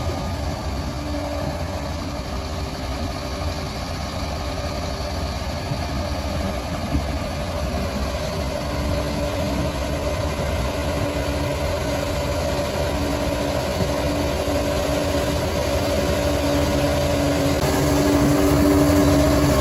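Bulldozer's diesel engine running steadily, growing somewhat louder near the end.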